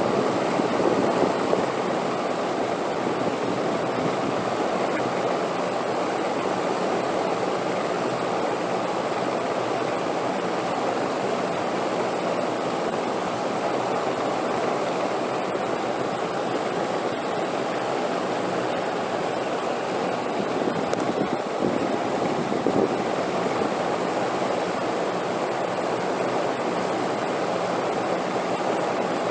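Wind blowing steadily, an even rushing noise with small swells now and then.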